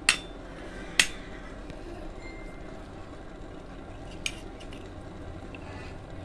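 Kitchen utensil clinking against a cooking pot: two sharp clinks about a second apart near the start, then a fainter one about four seconds in.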